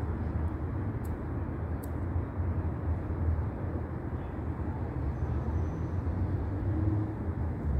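Steady low outdoor background rumble, with two faint clicks about one and two seconds in.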